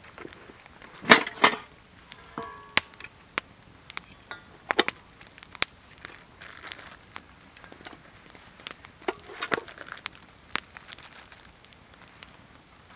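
Handling of metal camp cookware and plastic bags: sharp clicks and knocks of a tin and its lid against metal pans, with rustling and crinkling of plastic wrapping, the loudest crinkle about a second in. A short metallic ring sounds about two and a half seconds in.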